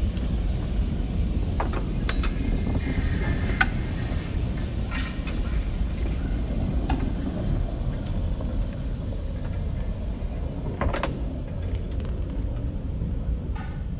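Ex-Den Haag PCC tram set running past on its track: a steady low rumble from the running gear, with a few short sharp clicks scattered through it.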